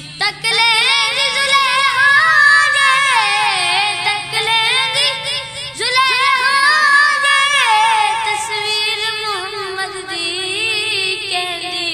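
A boy singing an Urdu naat solo, in long wavering held notes. The voice breaks off briefly about halfway through, then starts a new phrase.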